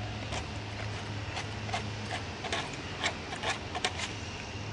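Metal fork clicking and scraping in a takeout food container, a string of short irregular ticks that come thickest in the second half, over a steady low hum.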